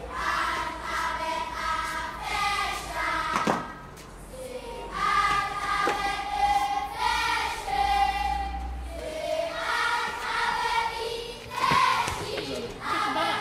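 A choir singing, several voices holding long notes in phrases, with a few sharp knocks among them.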